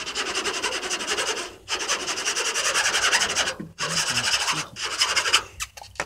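Fast rasping rub close to the microphone, in three long stretches broken by brief gaps about a third and two-thirds of the way through.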